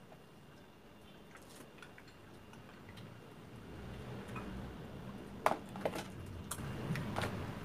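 Metal spoons clicking and scraping against plastic ice cream tubs, with a few sharper clicks from about five and a half seconds in, over a low rumble that builds from about three seconds in.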